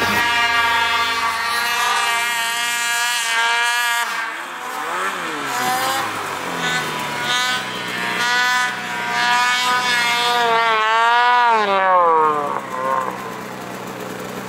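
Snowmobile engine revving as the sled works through deep powder, its pitch climbing and falling again and again, with a long drop in pitch near the end.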